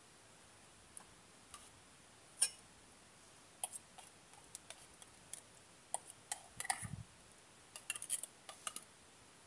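A metal spoon clinking and scraping against a tin can and a small metal pot as food is spooned out: a few light scattered clicks and taps, bunching up in the second half, with one soft low thump.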